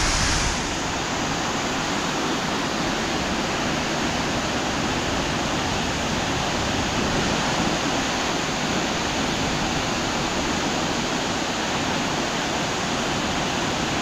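Waterfall in spate, a steady rush of falling water, swollen by heavy rain.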